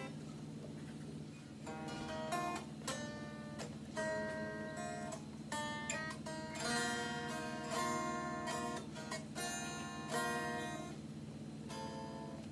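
Strat-type electric guitar fitted with a clip-on capo, chords strummed one at a time with short gaps between them, each left to ring briefly, over a steady low hum.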